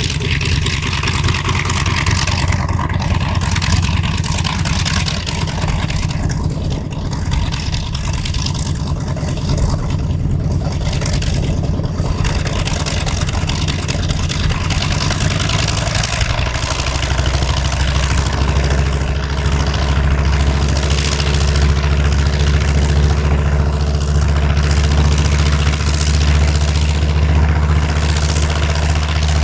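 TBM Avenger's 14-cylinder Wright R-2600 radial engine running, changing about halfway through to a steadier, lower-pitched drone.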